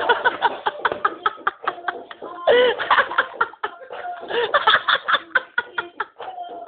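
People laughing and snickering, in short bursts, strongest about two and a half seconds in and again near the middle.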